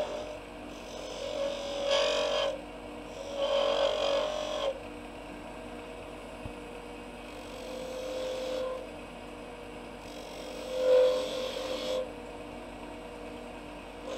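Wood lathe running with a steady hum while a skew chisel takes about four short cuts along the spinning wooden handle, each pass a brief rush of cutting noise, the loudest near the end.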